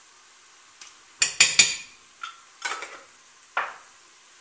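Steel spoon knocking and scraping against a stainless steel pressure cooker as ginger-garlic paste is tapped off into the pot: a quick cluster of sharp metal clanks about a second in, then three more single knocks, some with a brief ring.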